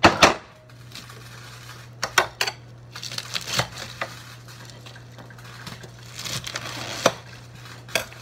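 A kitchen knife clinking and scraping against a plate while lettuce is cut and torn, with a sharp clink at the start and scattered clicks and crunches after it. A low steady hum runs underneath.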